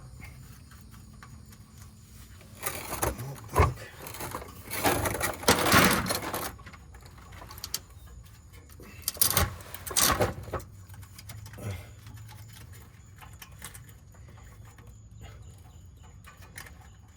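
Scraping, rustling and metal clinks of a hand and tools working blind in a tight space up behind the engine, with louder bursts of handling noise about three seconds in, between five and six seconds, and again around nine to ten seconds.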